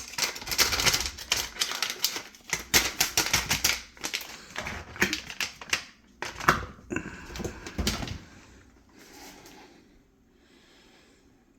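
A quick run of sharp clicks and clatter, as of dishwasher parts being handled, dense for about eight seconds and then dying away to quiet.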